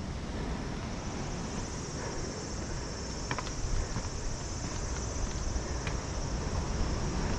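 A high-pitched, steady insect chorus, over wind rumbling on the microphone, with a few footstep clicks.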